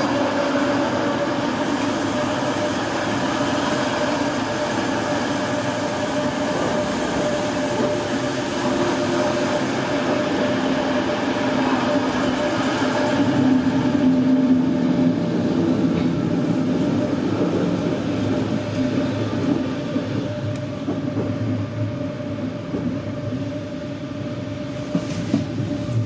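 Running noise of a regional train of n-Wagen coaches hauled by a Class 185 electric locomotive, heard from aboard, with a steady humming tone throughout. A high hiss lies over it for the first several seconds.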